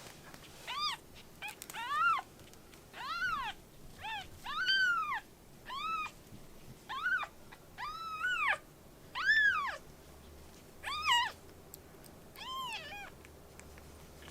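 Baby kitten meowing over and over: about a dozen high mews, each rising and then falling in pitch, roughly one a second.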